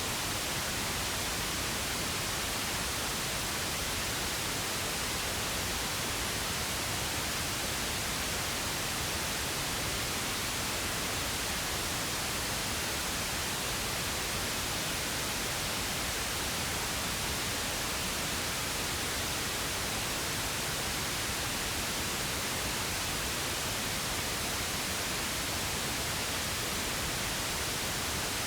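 Steady, unchanging pink noise: an even hiss spread across all pitches, without any pauses or changes.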